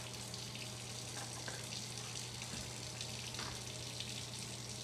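Steady hissing noise with a constant low hum underneath, and a few faint soft rustles as a cat paws at a roll of paper towels.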